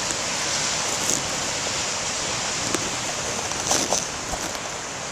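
Storm surf from a nor'easter swell breaking and rushing steadily against the shore, with wind noise on the microphone and a few faint ticks.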